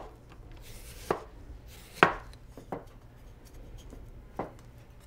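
Chef's knife slicing an onion on a wooden cutting board: a few sharp knocks of the blade against the board, roughly a second apart.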